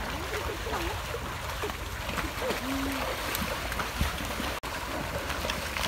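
Water sloshing and splashing as a herd of water buffalo wades and wallows in a shallow muddy stream, over a steady low rumble. The sound cuts out for an instant about four and a half seconds in.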